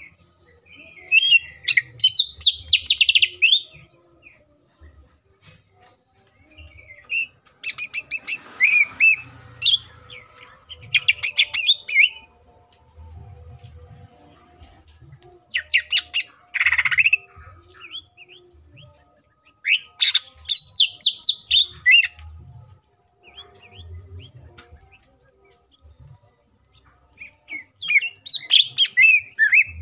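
A caged cucak ijo (green leafbird) singing in about six separate bursts of rapid, varied, high chirping phrases, each one to three seconds long with short pauses between them. This is its full song, packed with borrowed phrases (isian).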